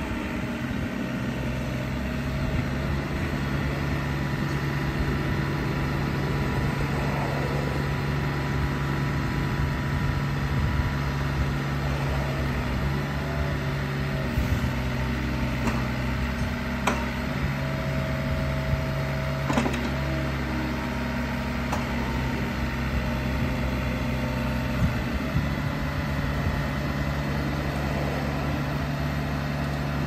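Komatsu PC27MRX-2 mini excavator's three-cylinder Komatsu 3D82AE diesel engine running steadily while the boom and arm are worked hydraulically. A few sharp clicks come around the middle.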